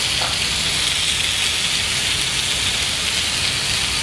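Meat sizzling steadily on a hot grill pan, an even hiss with no break.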